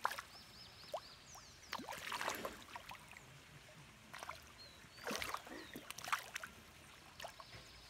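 Fish splashing and slurping at the surface of a pond as they take food, in a few short bursts about two, five and six seconds in.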